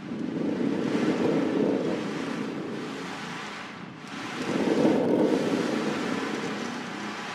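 Stormy sea ambience: two long rushes of surging surf and storm rumble, the first starting sharply and the second swelling about four and a half seconds in, each fading away.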